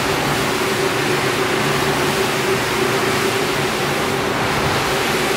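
Single-disc rotary floor scrubber running steadily: an even motor hum with the wet swish of its brush working shampoo foam into a rug.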